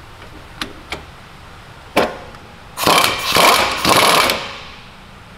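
A powered wrench runs in about two short bursts, about one and a half seconds in all, on the pinion nut of a Salisbury differential, snugging it down just enough to take up the free play in the pinion bearings. A few light clicks and one sharp metallic click come before it.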